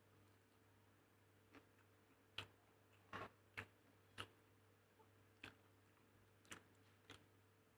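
Kitchen utensils tapping: about eight light, sharp clicks at uneven intervals, over a faint steady hum.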